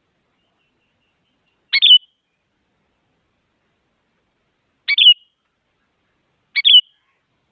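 Sooty-headed bulbul giving short, sharp two-part calls: one about two seconds in, then two more close together near the end.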